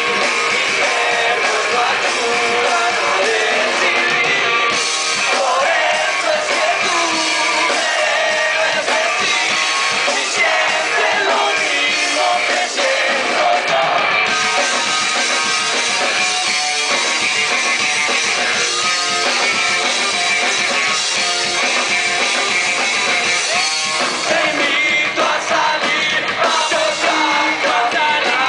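A punk rock band playing live at full volume: electric guitars and drums with shouted singing, recorded from within the crowd, so the sound is loud and thin in the low end.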